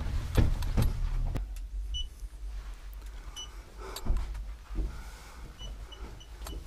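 Footsteps and camera handling noise while walking through a narrow rock tunnel: a rumble at first, then a few knocks. Short high electronic beeps come twice, then as a quick series near the end.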